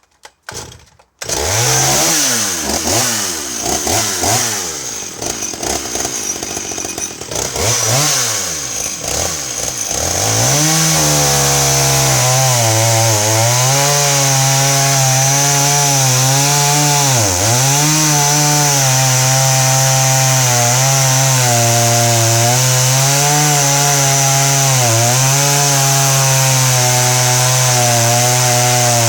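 Sachs Dolmar 102, a 39cc two-stroke chainsaw, starting about a second in and revving up and down. About ten seconds in it settles at full throttle, with small dips in revs as it cuts through a log, the chain rasping through the wood. The owner thinks it is running a tiny bit rich.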